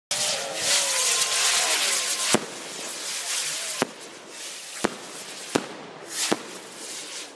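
Aerial fireworks: for about the first two seconds a loud hiss with wavering whistles, then about five sharp bangs roughly a second apart as shells burst overhead, with hissing in between.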